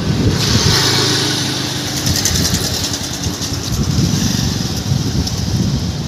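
A motorcycle engine running close by, a steady hum clearest in the first couple of seconds, over a hiss.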